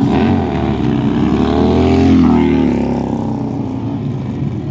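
Small stunt motorcycle's engine revving as the rider holds a wheelie. Its pitch climbs to a peak about two seconds in, then eases off.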